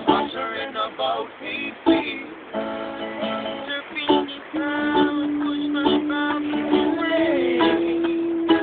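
Ukulele and guitar strummed together in a casual acoustic jam. About halfway through a voice comes in and holds one long note, stepping up slightly near the end.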